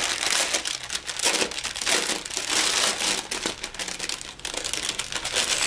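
Plastic packaging crinkling and rustling as a clear bag of small bagged acrylic diamond-painting drills is handled, a steady irregular crackle of many small clicks.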